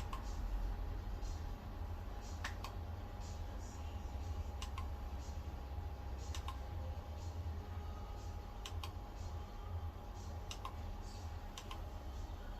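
Irregular light clicks, one or two a second, over a low steady hum and a faint steady tone.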